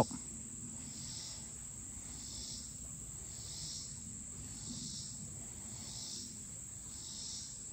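Insects chirping: a steady high trill with a lower pulsed chirp repeating about once a second.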